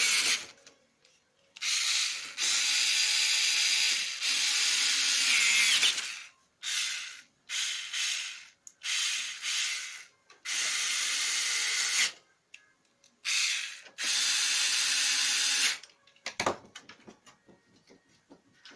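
A small electric motor-driven mechanism runs in about eleven short bursts with a grinding, hissing whirr, starting and stopping repeatedly. A single knock comes near the end.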